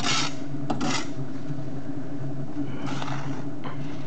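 A shovel scraping and sand being thrown onto a steel charcoal kiln three times. Under it runs a steady low, tuneful drone from the burning kiln drawing through its chimneys.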